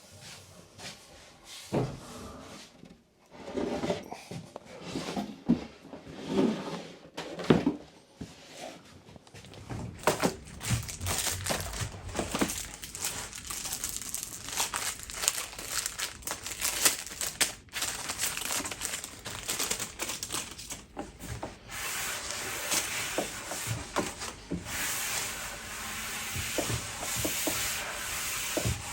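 A cloth rubbing and wiping over the ash desktop's sanded surface, a continuous scuffing hiss. It follows a few knocks and bumps in the first ten seconds as the board is handled.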